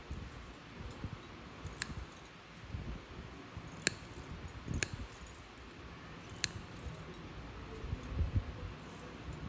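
Steel toenail nippers snipping into a thick, crusted toenail, four sharp clicks spaced a second or two apart, over low rustling from the gloved hands handling the foot.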